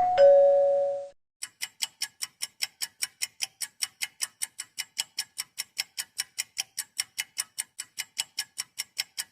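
A short two-note descending chime, then a fast clock-ticking sound effect: sharp, even ticks about five a second.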